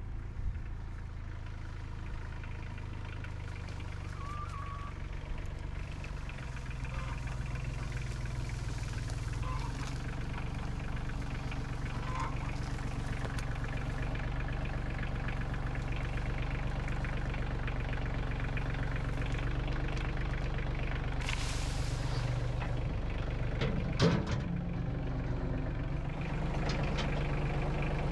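Compact tractor engine running steadily as the tractor drives up with a loaded front-end loader bucket, growing gradually louder as it comes closer. A short hiss comes about three-quarters of the way through, and a single sharp knock follows a couple of seconds later.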